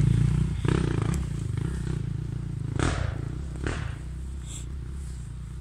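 Enduro motorcycle engine running under load as the bike climbs the trail, slowly fading as it pulls away. Two brief clattering noises about three seconds in.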